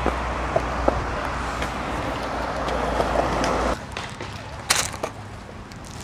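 Outdoor skatepark sound on camcorder audio: a steady rushing noise with a low hum and a few light clicks that cuts off abruptly near four seconds in. Quieter outdoor sound follows, with one sharp knock about a second later.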